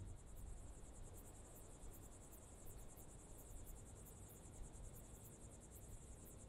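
Faint crickets chirping at night, a steady run of high-pitched chirps repeating several times a second.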